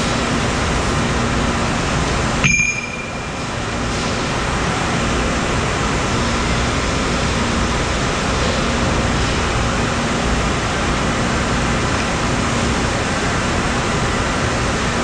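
Steady machine-shop din from an automated CNC lathe and the surrounding machines running, with a faint steady hum. About two and a half seconds in, a single sharp clank rings briefly.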